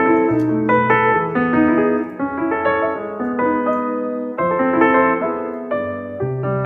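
Soft background piano music: a gentle melody over slow bass notes.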